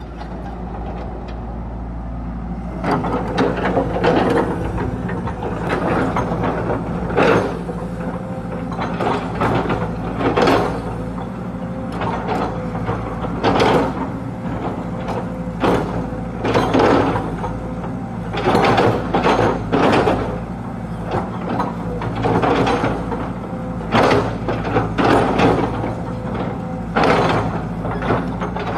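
Caterpillar E120B excavator's diesel engine running steadily, with repeated short bursts of mechanical clanking and creaking from about three seconds in as the boom, arm and bucket are worked.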